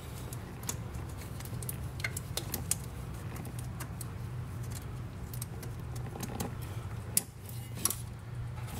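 Light plastic clicks and rattles of an oxygen-sensor wiring plug and its retaining clip being handled and pushed onto a bracket, with two sharper clicks near the end, over a steady low hum.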